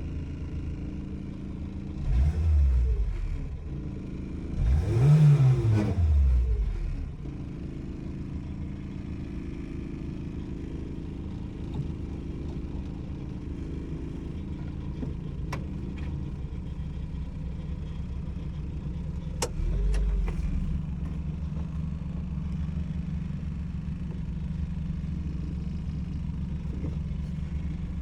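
Renault 4 GTL's small four-cylinder engine running steadily, revved up and back down twice in quick succession near the start, with a smaller rev about two-thirds of the way through.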